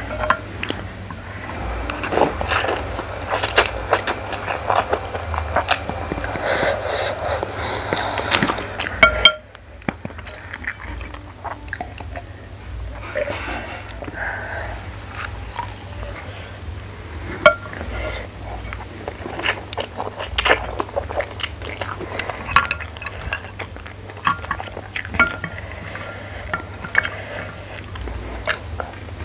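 Close-miked eating: chewing and slurping of soupy instant noodles, with many small clicks and scrapes of chopsticks against the bowl.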